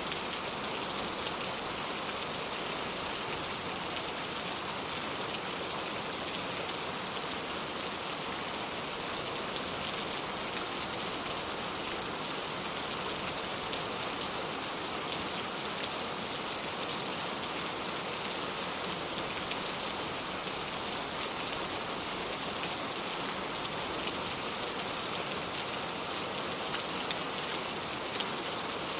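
Steady rain falling and pattering on surfaces, an even hiss with many small drop ticks throughout.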